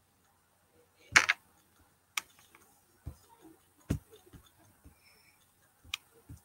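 A few sharp computer mouse clicks, spaced roughly a second apart, with a slightly longer click about a second in.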